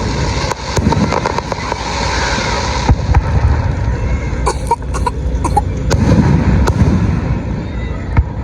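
Fireworks going off: a string of loud bangs and crackling pops over a low rumble, with a quick cluster of crackles near the middle.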